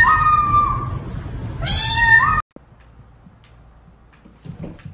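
Orange kitten giving two long, wailing meows, the second rising in pitch at its end, siren-like, as if imitating an ambulance.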